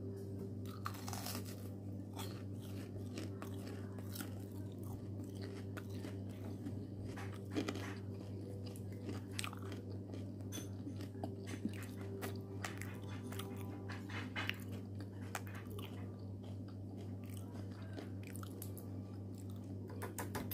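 Close-up chewing and crunching of breaded crispy fried shrimp: many short, irregular crunches with wet chewing, over a steady low hum.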